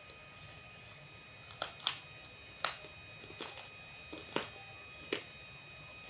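Roasted multani mitti (Fuller's earth clay) crunching in sharp, crisp snaps, about seven of them at an irregular pace, starting about a second and a half in.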